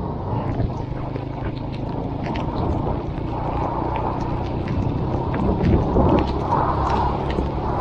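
Honda CB190R single-cylinder motorcycle engine running while riding, under a rush of wind, with rain ticking sharply throughout. The sound swells about five and a half seconds in.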